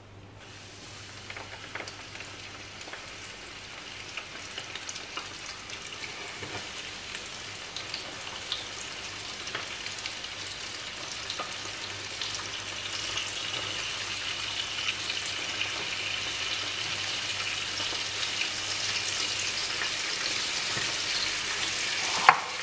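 Floured blue whiting frying in hot oil in a frying pan: a crackling sizzle with many small pops that grows steadily louder as more fish go into the oil. A single sharp click near the end.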